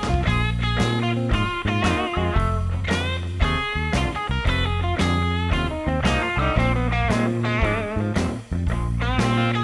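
Background music: electric guitar playing bending, sliding lead notes over bass and drums in a blues-rock style.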